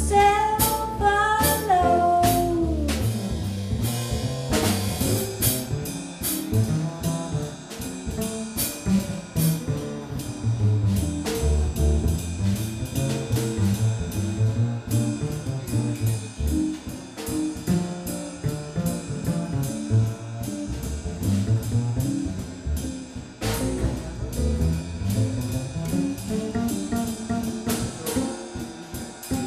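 Live jazz quartet playing an instrumental section: hollow-body archtop guitar, upright double bass and drum kit keeping a steady swing. A sung phrase ends in the first couple of seconds.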